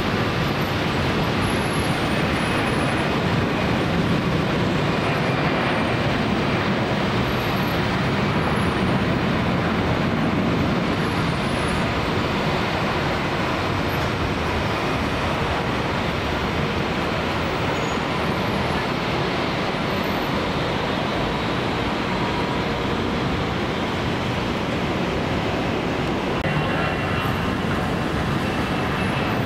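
Jet airliner engines at takeoff power: a loud, steady roar, with a faint whine joining in near the end.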